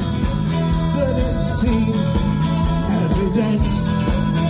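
Live rock band playing loudly: electric guitars and drums with a steady beat.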